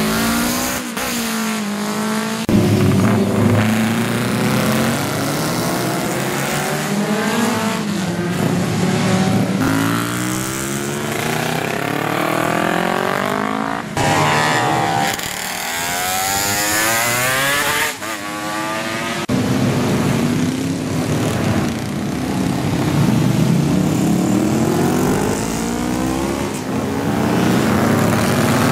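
Classic racing motorcycles over 350 cc, built up to 1970, passing at racing speed one after another. Each engine climbs in pitch as it accelerates, then drops back, and the sound breaks off abruptly several times between passes.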